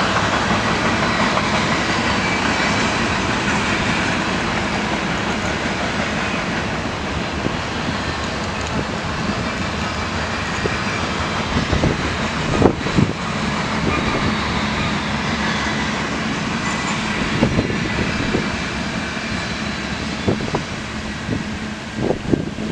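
Covered hopper cars of a CN potash freight train rolling by: a steady rumble of steel wheels on the rails, with occasional clanks and knocks, the loudest about halfway through.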